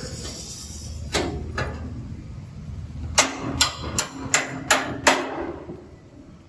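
Hammer striking a steel door frame: two knocks, then a quicker run of six louder blows, about three a second, with the metal ringing under them.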